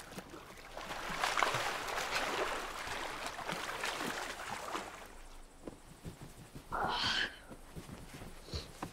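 Pool water splashing and streaming off bodies as swimmers haul themselves out over the edge of a swimming pool, then fading. About seven seconds in there is a short rushing noise.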